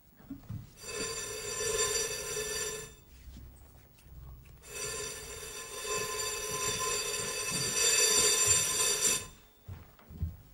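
Electric doorbell buzzer ringing twice: a buzz of about two seconds, then a longer one of about four and a half seconds.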